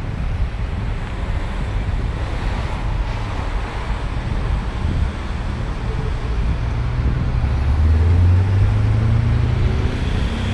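Road traffic on the adjacent street, a steady rush of passing cars with a heavy low rumble. One vehicle passes close and is loudest about eight seconds in.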